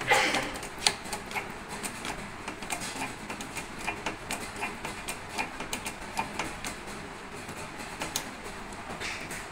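A hydraulic bottle-jack press pressing a new ball bearing onto an electric motor's rotor shaft: a sharp knock at the start, then irregular light metallic clicks and ticks, a few a second.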